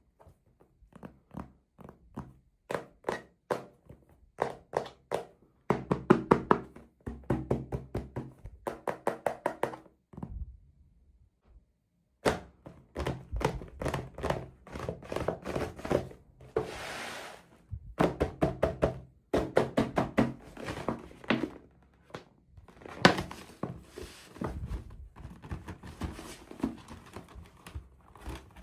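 Hands handling small hard plastic toy pieces and packaging: many quick taps, clicks and knocks, some in fast runs, with a short rustle about two-thirds of the way through.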